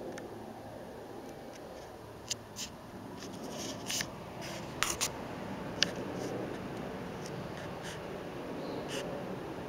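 Handheld camera handling noise: rubbing and a handful of sharp clicks and taps, bunched between about two and six seconds in while the camera is swung around, over a steady background hiss.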